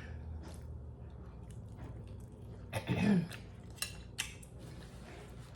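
A brief throat sound with a falling pitch about three seconds in, then two short sharp clicks, over a low steady hum.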